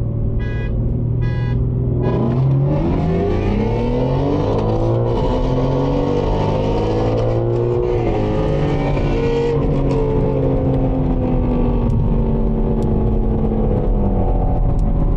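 BMW G80 M3's twin-turbo inline-six pulling hard at full throttle, heard inside the cabin: the engine note rises steeply through the gears from about two seconds in, drops at an upshift about eight seconds in, climbs again and eases off near the end. Two short beeps sound just before the pull.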